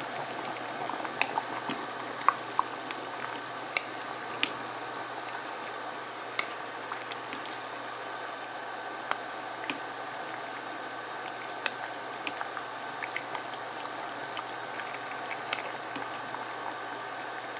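Food sizzling and bubbling as it cooks: a steady hiss with scattered sharp pops and crackles.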